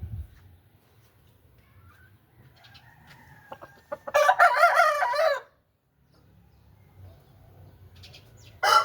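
Aseel rooster crowing: one short crow about four seconds in, and another beginning right at the end.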